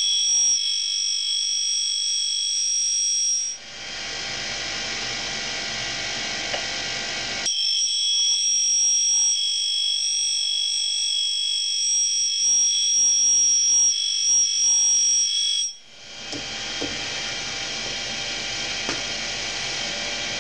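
Tool and cutter grinder wheel grinding the secondary clearance angle on a two-flute end mill. It gives a steady high-pitched squeal in two passes of several seconds each. Between and after the passes there is a quieter steady hiss while the tool is off the wheel.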